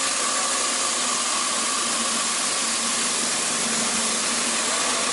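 Steady machine-shop background noise: a loud, even hiss with a faint steady tone running through it.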